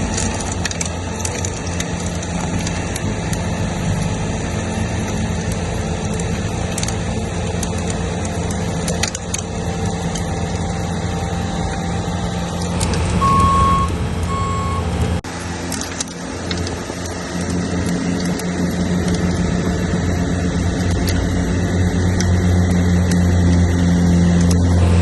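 Bobcat S64 skid steer's diesel engine running hard, driving a Bobcat SB200 snowblower attachment as it chews through and throws wet, heavy snow. About 13 seconds in, the backup alarm beeps twice as the machine reverses.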